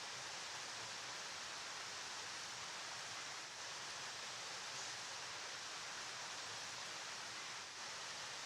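River water flowing, a steady even hiss of moving water with no change.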